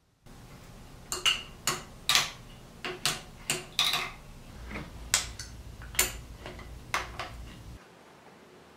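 Adjustable wrench clinking on the clamp nuts of an Enco milling machine's tilting head as they are loosened to swing the head off axis. A dozen or so sharp metallic clicks and clanks at irregular intervals, some ringing briefly.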